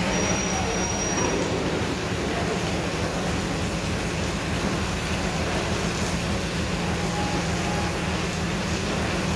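Empty covered freight wagons rolling past close by: a steady rumble of wheels on the rails. A brief thin, high squeal comes in the first second or so.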